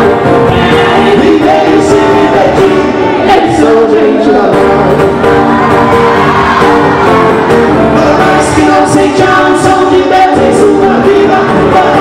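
Live Portuguese-language Christian worship song: a male and female lead duo and a large choir and congregation singing together, accompanied by acoustic guitars, one of them a twelve-string.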